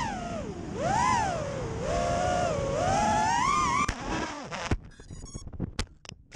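Racing quadcopter's T-Motor F60 III 2500KV brushless motors and 5-inch tri-blade propellers whining, the pitch rising and falling with throttle. About four seconds in a sharp crack cuts it off, followed by scattered knocks and clatter as the quad crashes and tumbles.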